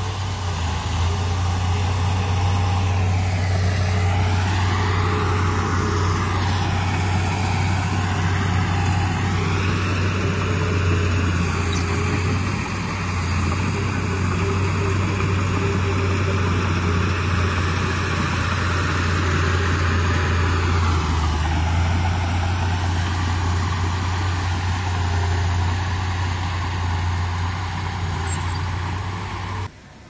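Komatsu D31P bulldozer's diesel engine running under load, a steady low drone with a higher-pitched noise that rises and falls several times as the dozer works. The sound cuts off suddenly just before the end.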